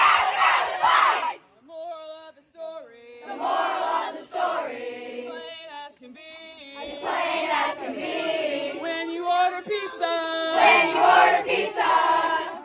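Group of children and teens singing a call-and-response camp action song: a single voice sings a line and the group sings it back, twice, with the group's loudest stretch in the second half.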